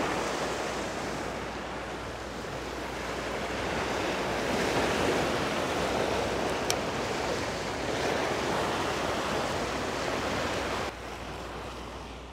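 Sea surf washing against a rocky breakwater, mixed with wind on the microphone; the wash rises and falls every few seconds and drops off suddenly near the end.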